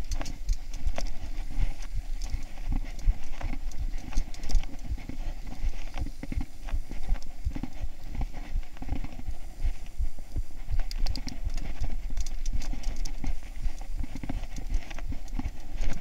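Mountain bike rolling over a rough, stony dirt trail: a dense, irregular clatter of knocks and rattles from the bike jolting over the ground, over a steady low rumble.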